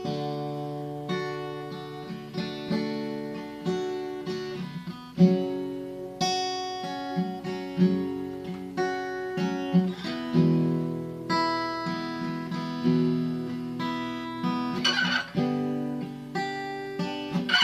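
Acoustic guitar playing an instrumental break between verses: a run of picked notes and strummed chords, each ringing and fading, with one sharp strum near the end.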